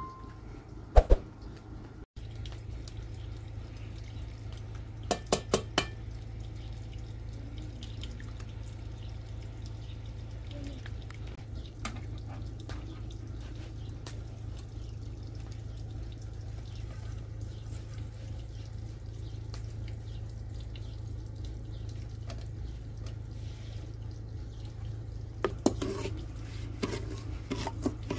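Liquid pouring and dripping from a plastic tub into an aluminium pot, over a steady low rumble. Near the end a metal ladle clinks and scrapes against the pot several times as the mixture is stirred.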